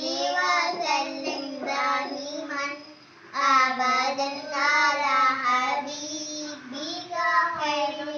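Young girls' voices singing a naat, an Urdu devotional song, in a sustained melodic line, with a short break about three seconds in before the singing resumes.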